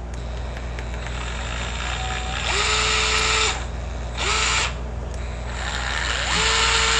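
DeWalt DCF682 8V Max gyroscopic cordless screwdriver running unloaded in short spurts, each one starting with a quick rise in pitch and settling into a steady whine, with a longer run near the end. The owner finds it slow and weak and feels the motor struggling.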